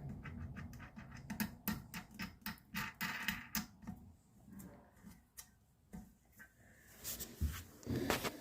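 Plastic wing nut being spun by hand onto a toilet closet bolt: a quick run of light clicks, about four or five a second, that thins out after about four seconds, with scattered knocks of handling near the end.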